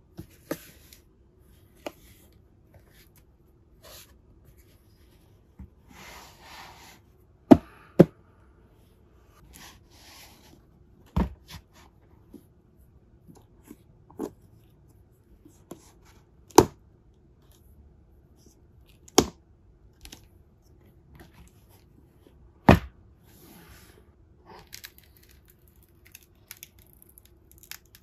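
A cardboard gift box being handled, set down and opened with gloved hands: about half a dozen sharp knocks and clicks a few seconds apart, with soft rustling and scraping of cardboard between them.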